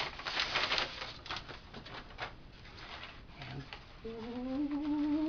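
Plastic mail bag crinkling as it is pulled open in the first second, followed by scattered rustles of paper towels being handled. Near the end, a low, slightly rising drawn-out tone lasting about a second and a half.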